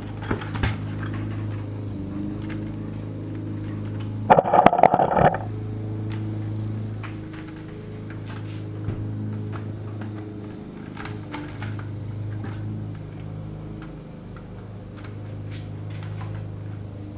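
Plastic 5-gallon buckets being handled while a screw and nut are fitted by hand: scattered small clicks and knocks of plastic and hardware, with a brief loud rattling scrape about four seconds in. A steady low hum runs underneath.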